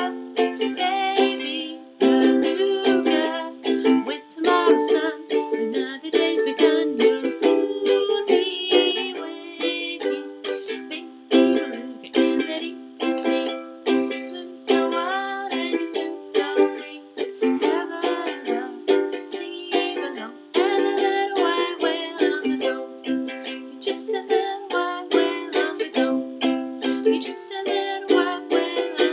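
Instrumental passage of strummed chords on an acoustic string instrument, with no singing, several strums a second.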